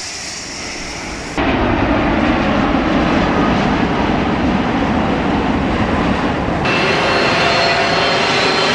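Jet airliners on low landing approach, engine noise loud and steady. The sound jumps abruptly about a second and a half in and again near the end, at edits between clips, and the last part carries a high whine from the engines.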